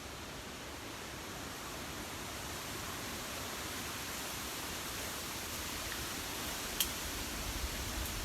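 Strong wind rushing steadily through trees and vegetation on a mountaintop, a broad hiss that slowly grows louder, with one sharp click near the end.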